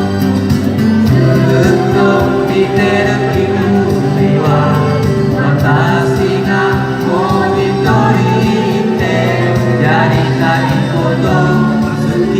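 Music: a pop song with singing voices over steady instrumental accompaniment.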